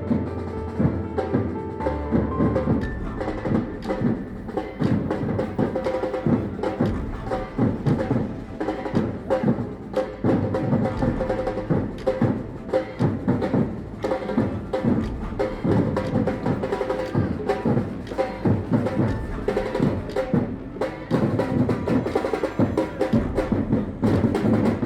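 Batucada (Brazilian samba percussion ensemble) playing a dense, driving drum rhythm, cutting off suddenly at the end.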